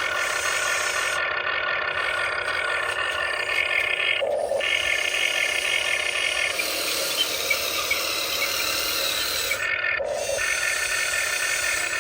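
Huina 1599 RC excavator's electric drive motors and gearboxes whining steadily as the machine works, the pitch changing abruptly as different functions switch on and off, about 4 and 10 seconds in.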